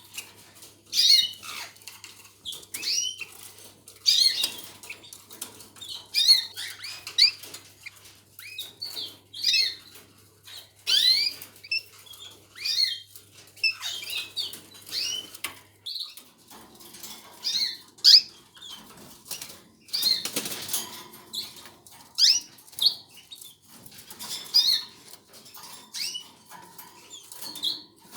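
Caged canaries chirping and calling: many short, high notes and quick up-and-down glides in clusters, with a brief rustling burst about twenty seconds in.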